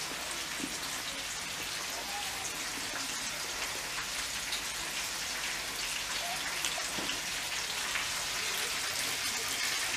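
Steady, fine crackling hiss of meatballs sizzling in a hot pan.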